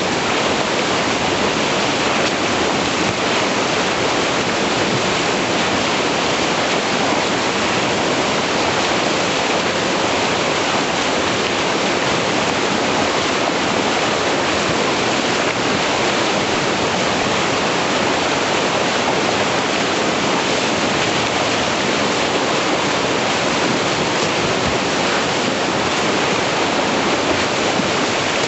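River whitewater rushing steadily through a rapid and its standing wave, a loud, even, unbroken water noise.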